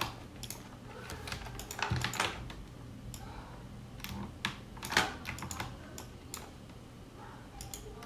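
Scattered clicks of a computer keyboard and mouse, coming a few at a time with pauses between, over a faint steady low hum.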